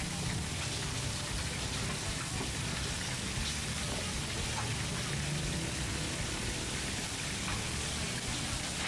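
Food sizzling as it cooks: a steady hiss with small crackles scattered through it.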